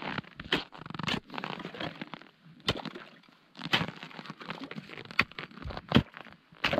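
Ice chisel striking and chipping ice at a fishing hole: about seven sharp, irregular blows, with crunching and cracking of ice between them.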